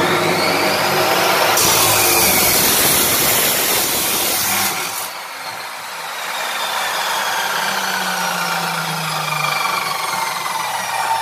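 Abrasive cut-off saw (Planet Power Hammer Series) running at full speed, its wheel grinding through galvanized steel pipe for about three seconds with a loud, harsh hiss. After the cut the motor coasts down, its whine falling slowly in pitch.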